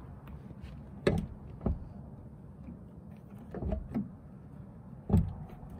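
A few scattered knocks and clicks from a 1997 Dodge Ram 2500's door being pressed and pushed shut by hand, its latch still not catching all the way.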